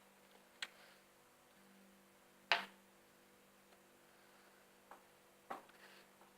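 Four short sharp taps or clicks, the loudest about two and a half seconds in, over a faint steady hum.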